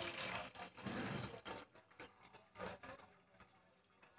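Water poured from a bowl into a stainless steel pot: a steady splashing pour for about a second and a half, then thinning to a trickle and a few scattered drips that fade out.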